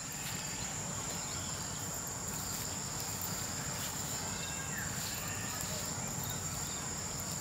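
An insect, such as a cricket, trilling steadily at one high pitch, with a few faint clicks.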